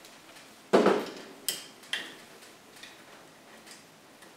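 A heavy knock about a second in as the motor rotor with its brake disc is set down on the wooden bench, then two sharp metal clicks and faint scattered ticks of a T-handle key working the four screws that hold the brake disc to the back of the rotor.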